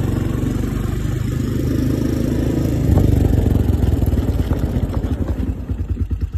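ATV engine running as it rides across packed snow. It swells briefly about three seconds in, then eases off near the end, so that its separate firing beats come through as it slows toward idle.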